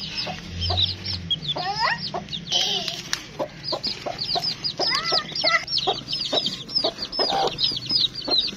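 Young chicks peeping steadily in thin, high calls, about three a second, over a mother hen's clucking. A few louder, rising calls stand out around two and five seconds in.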